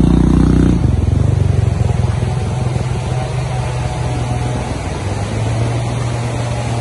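A small motorcycle engine running close by, loud for about the first second and then dropping off sharply as it moves away. A steadier, quieter engine hum carries on after that.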